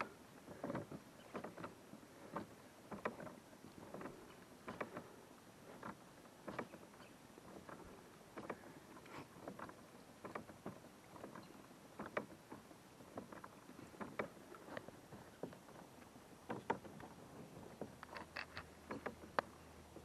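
Kayak fin pedal drive being pedalled gently, giving faint, irregular light clicks and ticks, with a louder cluster near the end; a quiet drive.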